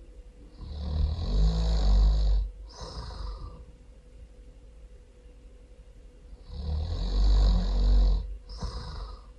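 A person snoring loudly. Two snore cycles come about six seconds apart, each a long, deep snore followed by a shorter second one.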